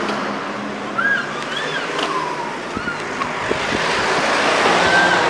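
Steady street noise, a hiss of wind and road traffic that swells toward the end, with a few short high chirps.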